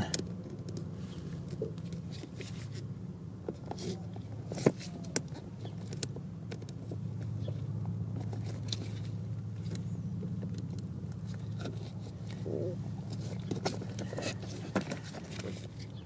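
Small plastic clicks and scrapes of a pick working terminal pins out of an ECU wiring-harness connector, releasing the little locking tabs, scattered and irregular over a steady low hum.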